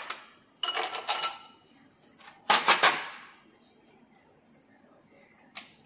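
Ice cubes clattering and a plastic ice cube tray rattling. There are two short bursts about half a second in, a louder burst near the middle, and a single sharp click near the end.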